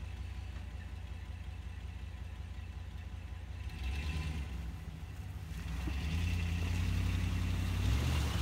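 2012 Dodge Ram 1500 pickup truck engine idling, then revving up under load from about four seconds in and running harder and louder from about six seconds, as it takes up the towline to drag a fir log out of the snowbank.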